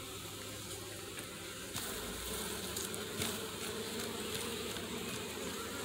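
Honeybees buzzing in a steady hum from an opened nuc hive, growing a little louder about two seconds in. There is a light knock about three seconds in.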